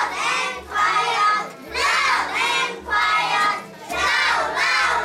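A group of young children singing an English action song together in short, loud phrases about a second apart.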